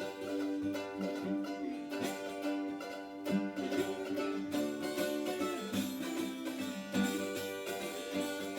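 Instrumental intro of a country song played on plucked string instruments, with some notes held long.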